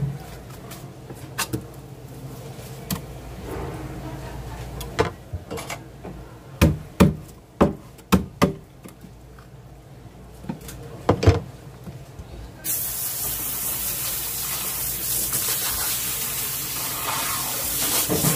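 A series of sharp knocks and thumps on a plastic cutting board as fish and tools are handled. About two-thirds of the way through, a hose starts spraying water steadily onto the board.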